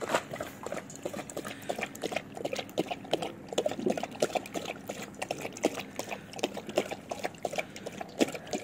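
German Shepherd lapping water from a stainless steel bowl, a steady run of quick splashing laps.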